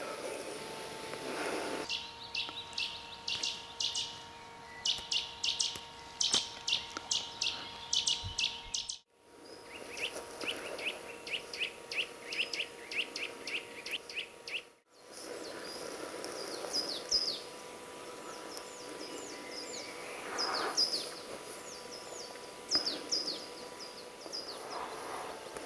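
Small songbirds calling: fast series of short, high, sharp notes, then a run of downward-sweeping notes after a break. A faint steady hum runs underneath, and the sound cuts out briefly twice.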